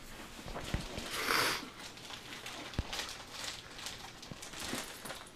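A hand patting and rubbing a dog's fur: soft rustling with a few light knocks, and a short breathy hiss about a second in.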